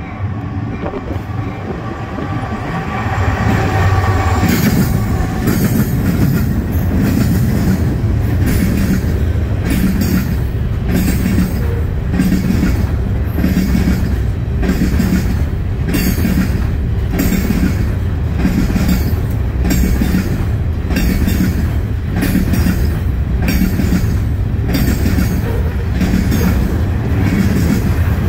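Norfolk Southern diesel freight train passing close by: the locomotives' low rumble swells about four seconds in. A long string of open-top gondola cars follows, their wheels clicking over rail joints in a steady clickety-clack of about one beat a second.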